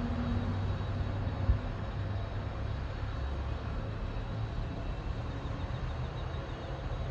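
Boeing 767-300ER's GE CF6 turbofan engines running after start, a steady low rumble. A single sharp thump about a second and a half in.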